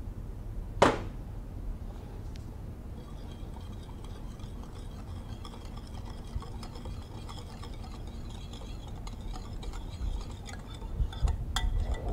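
Wire whisk stirring a creamy marinade in a ceramic bowl: a soft, steady scratchy whisking, with one sharp clink about a second in and a few louder taps of the whisk against the bowl near the end.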